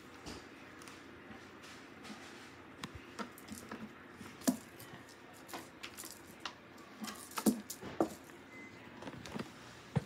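Irregular light thumps and taps from a cat clambering on a sisal-wrapped cat tree and dropping to the carpeted floor, the strongest a few seconds in and again past the middle.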